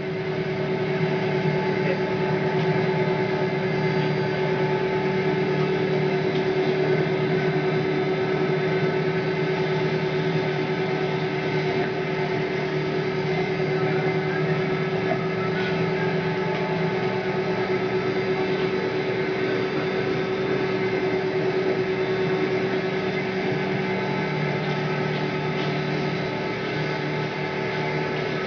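Mazak FH480 horizontal machining center running under power: a steady mechanical hum with a constant whine that does not change.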